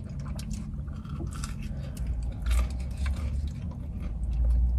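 Close-up chewing and biting of food, with small irregular crunches and wet mouth sounds as breaded chicken is eaten, over a low steady hum.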